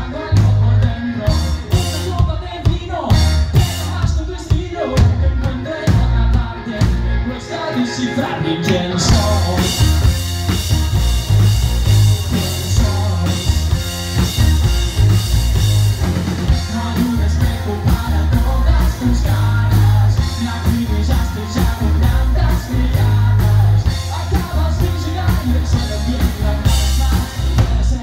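A rock band playing live: electric guitars, bass guitar and drum kit, with a male lead vocal. About nine seconds in, a bright wash of cymbals comes in and the band sounds fuller.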